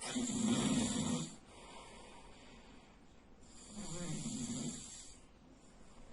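A sleeping man snoring loudly: two long snores, one at the start and another about three and a half seconds in, each lasting about a second and a half.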